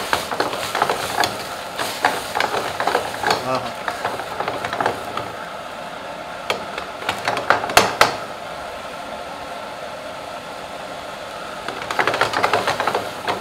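Steel ladle scraping and knocking against a frying pan as chicken malvani curry is stirred, with the curry sizzling over a gas burner. The scrapes come thick near the start, a few sharp clanks about eight seconds in, and a burst of stirring near the end.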